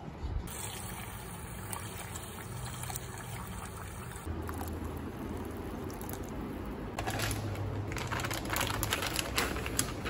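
Water poured from a container into a glass bowl of raw rice to rinse it. It splashes and trickles, growing heavier from about two-thirds of the way in.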